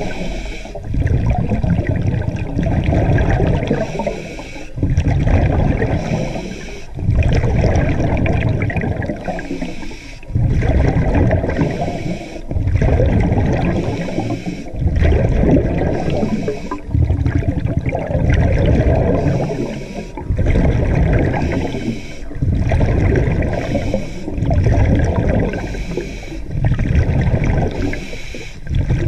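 A diver's breathing heard underwater: rhythmic rushing and bubbling, one breath every two to three seconds with short pauses between.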